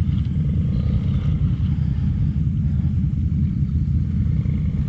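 Quad bike (ATV) engine running steadily at low revs while wading through deep water, a dense, even low rumble.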